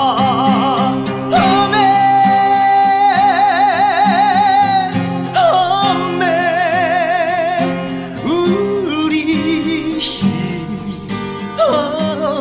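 A male voice singing a Korean ballad-style song with strong, wide vibrato on long held notes, accompanied by acoustic guitar.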